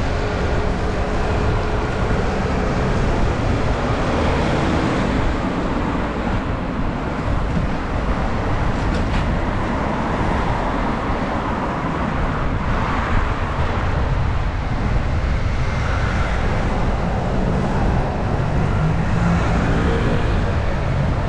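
City traffic and road noise heard while cycling along a street: a steady hiss with a low rumble and passing motor vehicles.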